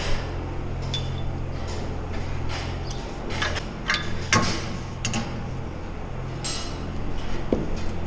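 Scattered metallic clanks and clinks of barn gates and stall fittings, the sharpest about four and a half seconds in, over a steady low machine hum.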